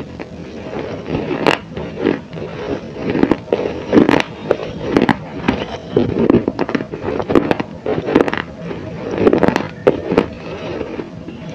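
Close-miked crunching and chewing of baked clay: irregular crisp crunches and crackles, about one or two a second.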